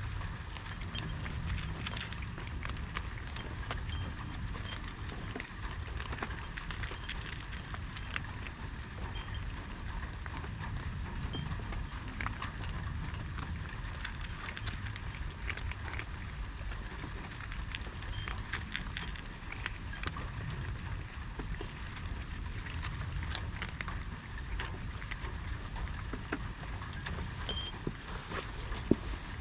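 Steady low outdoor rumble with many small irregular clicks and ticks over it, and one sharper click near the end.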